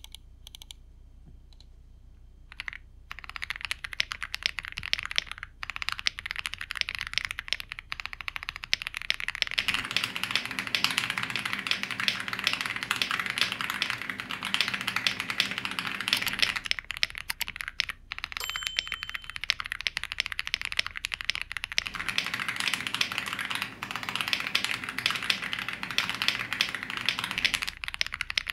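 Typing sound test on an Epomaker x Aula F65 gasket-mounted mechanical keyboard, with Leobog Graywood V3 linear switches under PBT double-shot keycaps and a polycarbonate plate. Fast, continuous key clacking starts about three seconds in.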